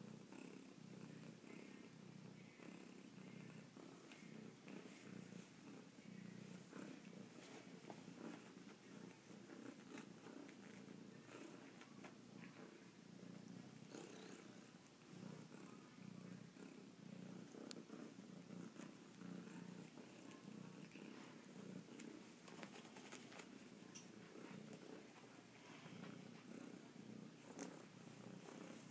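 Domestic cat purring steadily and quietly, close up, with scattered soft rustles and clicks on top.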